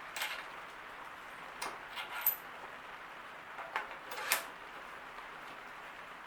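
About six light metallic clinks and knocks, a few with a brief high ring, from bicycle parts and tools being handled during assembly, over a steady hiss.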